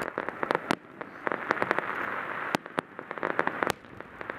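Aerial fireworks crackling: dense clusters of sharp pops from bursting shells, with short lulls between the clusters.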